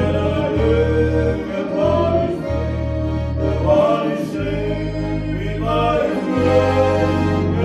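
A man singing to piano accordion and electronic organ, the organ holding long bass notes that change every second or so beneath the voice and accordion melody.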